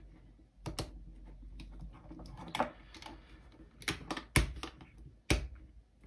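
Small plastic trail camera being handled and switched off: about seven sharp, irregularly spaced plastic clicks, the loudest about four and a half seconds in.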